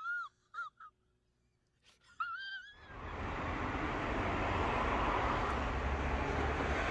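A high, warbling cry that wavers up and down in pitch, heard in a few short bursts over the first three seconds. It is followed by steady outdoor noise that slowly grows louder.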